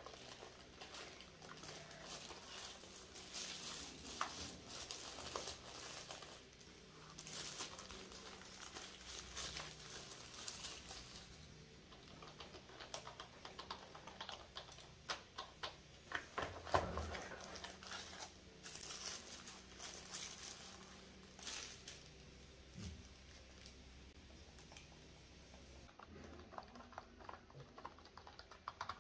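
Tissue paper rustling and crinkling as a wireless keyboard is unwrapped from its cardboard box, then scattered clacks of its round typewriter-style keycaps being pressed. A thump about two-thirds of the way through.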